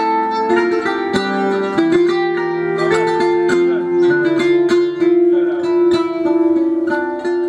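Turkish instrumental music: a kanun plucking a quick melody, with a long held note entering about two seconds in and sustaining until near the end.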